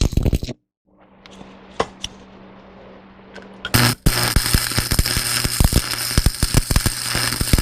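Stick-welding arc from an AC buzz-box welder, crackling and popping over a steady electrical hum. It is quieter for the first few seconds, then loud and steady from about four seconds in.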